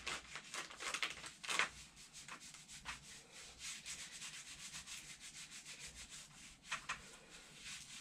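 Gloved hands rubbing and smoothing a setting cast sock over the foot and ankle: a run of short scratchy strokes, busiest in the first few seconds and again near the end, with fainter rustling between.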